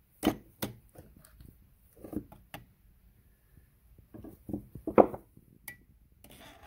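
Irregular light knocks and clicks from handling the stripped Holley two-barrel carburetor body and its parts; the loudest knock comes about five seconds in.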